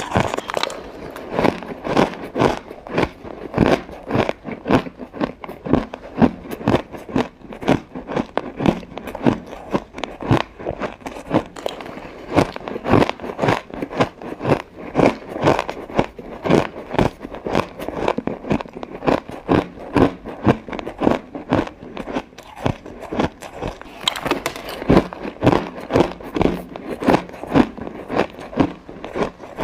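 Close-up bites of ice: a person crunching through ice cubes bite after bite, several sharp crunches a second without pause.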